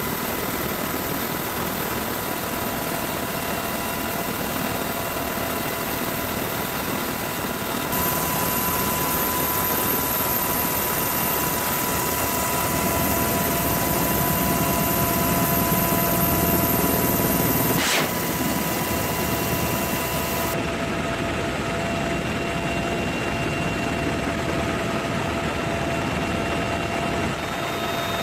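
Military helicopter in flight heard from on board: a steady rush of rotor and engine noise with a constant high turbine whine. The mix changes abruptly a few times, near 8, 18 and 20 seconds in.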